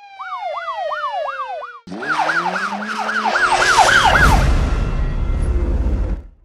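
Emergency vehicle siren in a fast up-and-down yelp, about three to four sweeps a second. A short break comes about two seconds in. Then a second siren yelp plays over a low rumble and noise that grow louder, and everything cuts off sharply near the end.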